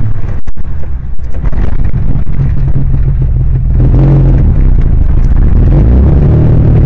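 1968 MGB's 1.8-litre four-cylinder engine running hard under load, heard from inside the open cockpit. The sound dips briefly about a second in, then gets louder and fuller about four seconds in.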